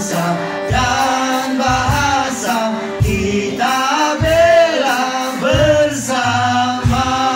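A group of voices singing a song together, accompanied by electric guitar, with a low beat about once a second.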